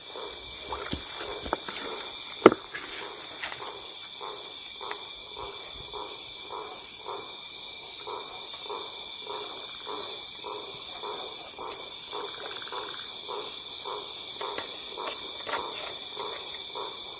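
Steady night chorus of crickets and other insects. Over it comes a regular scraping, about two strokes a second, from a kitchen knife working through a fish as it is cleaned. There is a single sharp click about two and a half seconds in.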